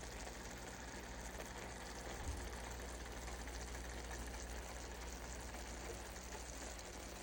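Frozen fajita chicken frying in a skillet: a steady sizzling hiss.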